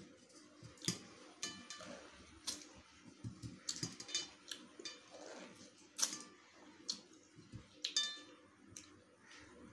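Eating sounds: irregular sharp clicks and light knocks of food and fingers against a plate, with chewing.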